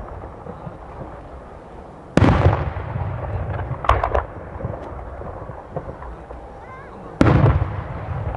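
Aerial firework shells bursting: two loud booms about five seconds apart, each trailing off in a rumble, with a quick cluster of sharp pops between them.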